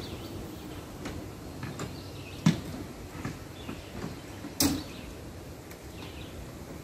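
Clunks and light rattles from a John Deere lawn tractor being pushed by hand with its engine off and hydrostatic drive disengaged, with two sharp knocks about two seconds apart and smaller clicks between.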